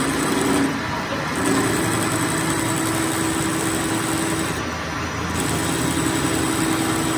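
A machine running steadily with a constant hum, its sound shifting briefly about a second in and again about five seconds in.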